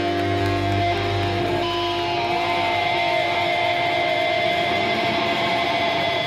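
Electric guitars ringing loud through the amps between songs, with long held feedback tones, some wavering in pitch. A low note fades out about a second and a half in.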